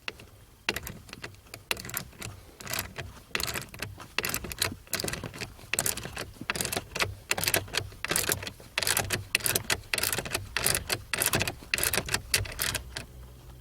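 Screwdriver driving the bottom screw into the plastic steering column cover: rapid, irregular clicking and scraping as the screw is wound in and tightened.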